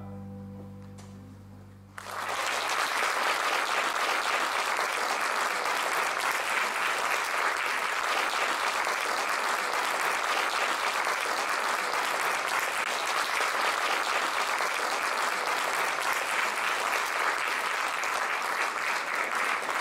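The last chord of a plucked-string ensemble of mandolins and guitars fading away, then audience applause starting about two seconds in and going on steadily.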